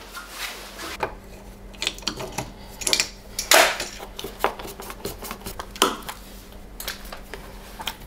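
Scattered small clicks, snips and scrapes of hand cutters and plastic as a wired alarm door contact is cut free and worked out of the top of a door frame, with the loudest snap about three and a half seconds in.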